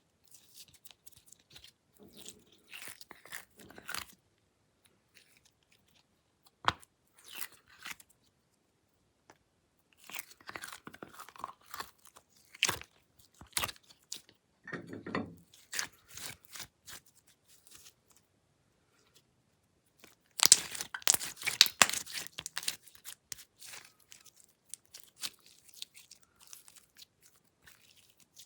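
Glossy slime being kneaded and stretched by hand with clay mixed in: sticky clicks, crackles and squishes in irregular bursts with short pauses, the loudest run of crackling about two-thirds of the way through.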